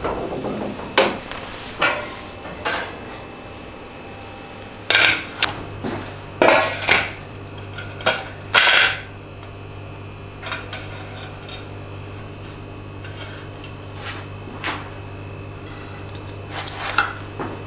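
Metal clattering and clinking of a stainless steel wire grill basket and steel trays being handled on a stone countertop: a string of sharp knocks and clanks in the first nine seconds, then lighter clicks and taps. A low steady hum runs underneath from about four seconds in.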